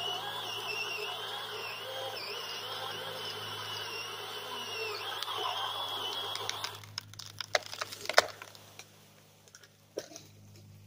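Chainsaw running at high revs, cutting through the hinge of a dead leaning tree, then let off about two-thirds of the way in. Wood cracks and snaps in a quick series of sharp knocks, with a loud crack near the end of the series as the tree goes over and hangs up in the neighbouring branches; a few fainter knocks follow.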